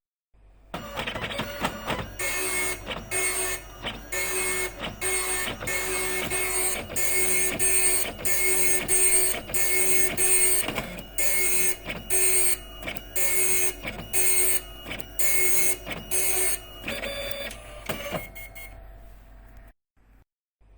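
Epson dot matrix printer printing: the print head buzzes across the page in repeated passes of about one a second. It starts about a second in, after a moment of silence, and stops shortly before the end.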